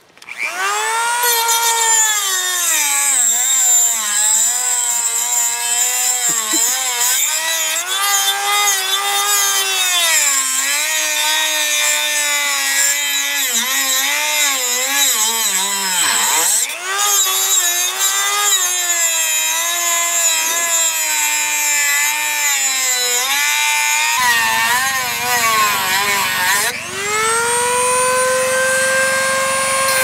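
Dremel rotary tool with a cut-off wheel grinding into a broken disc padlock. The motor's whine starts at the beginning, then wavers and sags in pitch as the wheel bites into the metal, dipping sharply about halfway through, and rises to a steadier, higher whine near the end as the load eases.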